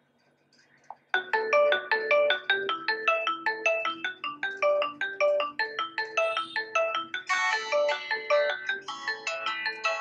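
A ringtone played through the Xiaomi Mi A2's loudspeaker: a melody of short, quick notes that starts about a second in and grows fuller from about seven seconds in.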